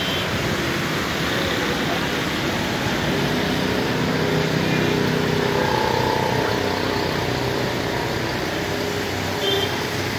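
Steady heavy rain falling, with a faint hum that swells and fades around the middle.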